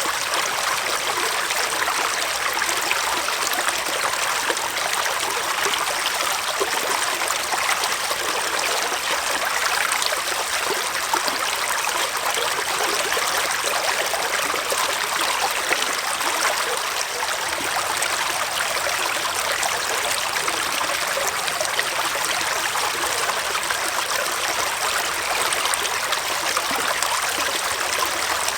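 Small forest stream running over stones, a steady rush of flowing water with fine trickling and splashing.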